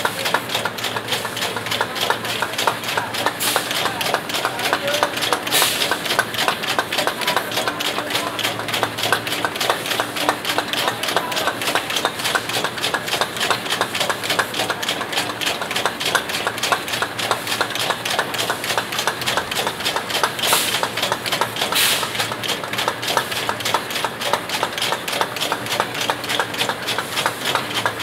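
Rotary plastic bottle-cap machine running: a fast, continuous clatter of its turning heads and the caps, over a steady hum, with a few short hisses.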